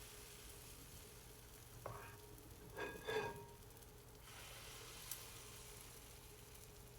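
Waffle batter sizzling faintly on the hot plates of a non-stick waffle iron, with a few short clatters about two and three seconds in.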